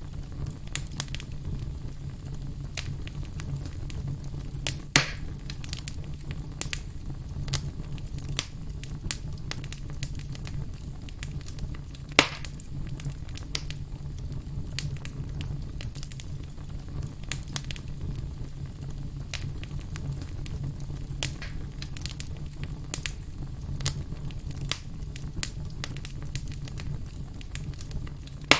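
Firewood burning, crackling steadily with many small snaps, two sharper loud pops, and a low steady rumble of the flames underneath.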